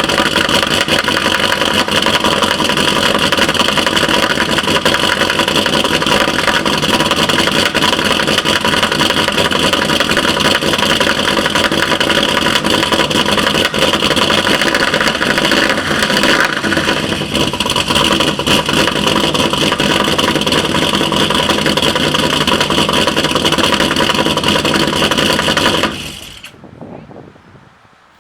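2012 Chevy Caprice PPV's 6.0-litre LS V8 running with a steady ticking that the owner places on the driver's side, after a cylinder-deactivation delete and a stage 2 cam; he suspects the valvetrain under the driver's-side valve cover. The sound stops abruptly near the end.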